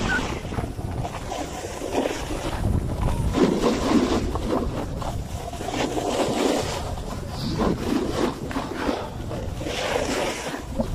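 Wind rushing over the microphone while snowboarding, with the board sliding and scraping over the snow in uneven swells.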